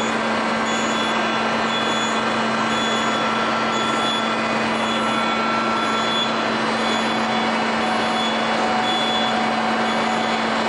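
Steady machine noise of a corrugated-panel roll-forming line while its stacker moves a formed panel onto the stack: a constant low hum and a thin whine that shifts to a lower pitch about two-thirds of the way through.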